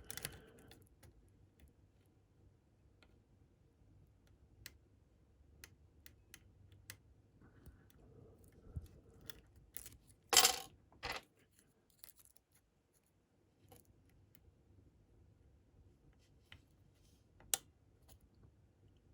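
Lock pick and tension wrench working the pins of a small Medeco cam lock: scattered light metallic clicks, with a louder brief metal rattle twice about ten seconds in.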